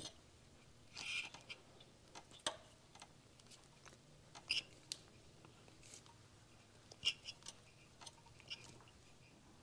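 Faint handling noises: irregular small clicks and rubbing as fingers work a rubber spark plug boot and cap onto the ignition lead.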